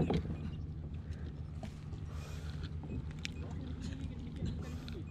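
Steady low drone of a boat motor running, with a few light knocks and clicks over it.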